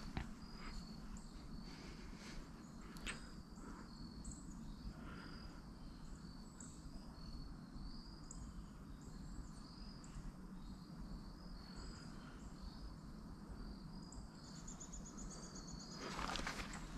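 Quiet woodland ambience with an insect chirping in short high notes repeated steadily, over a low rumble. Near the end a brief fast trill, then a rustle of clothing and rifle handling.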